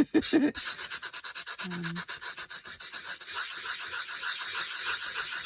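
Nail-file abrasive block rubbed back and forth in quick, steady strokes over dry-embossed white-core card, a scratchy, a little bit noisy sound as it sands the coloured top layer off the raised pattern to show the white core.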